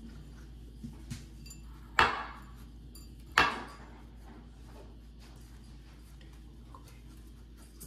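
A ceramic food bowl knocking twice against a hard countertop, about a second and a half apart, each knock ringing briefly, with a couple of faint clicks just before.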